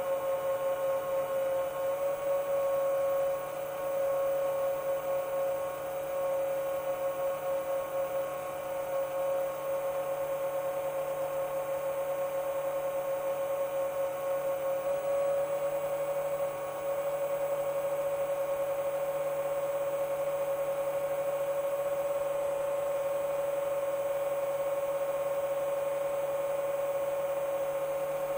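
Motors and propellers of a Chimera 7 long-range FPV quadcopter running at steady cruise throttle: a continuous whine whose pitch wavers only slightly, dipping briefly in loudness a few times.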